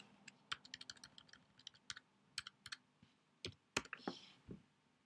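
Faint typing on a computer keyboard: a quick run of keystrokes, then a few separate key presses with a couple of louder taps near the end.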